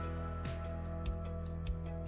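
Instrumental background music: held notes over a low beat that falls a little under twice a second.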